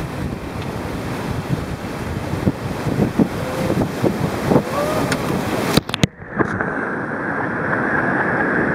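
Whitewater rapid rushing and splashing around a raft as it runs the waves, with wind buffeting the microphone. About six seconds in the sound briefly cuts out and then comes back duller.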